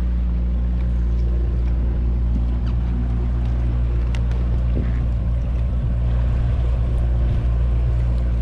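Boat motor running steadily at trolling speed, a constant low drone, with a few faint clicks over it.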